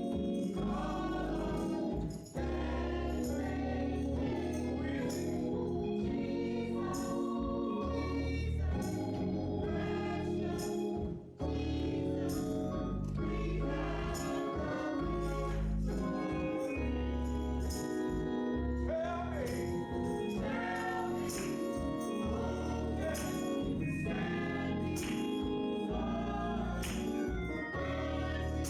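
Gospel choir singing with instrumental accompaniment and a steady percussion beat.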